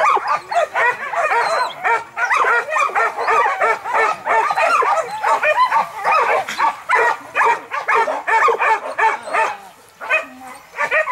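A pack of boar-hunting dogs baying and yelping without a break, many voices overlapping. The calls thin out briefly about ten seconds in.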